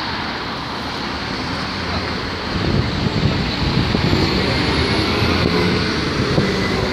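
Street traffic noise: road vehicles running close by, getting louder about two and a half seconds in.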